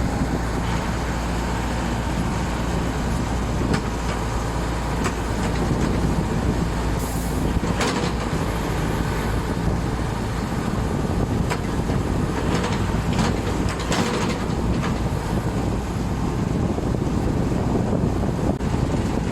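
Self-loading concrete mixer's engine running steadily, with scattered sharp knocks and clanks.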